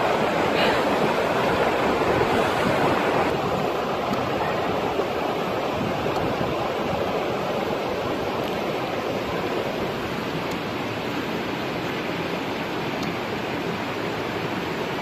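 Steady rushing of a fast, shallow river running over rocks, easing slightly about three seconds in.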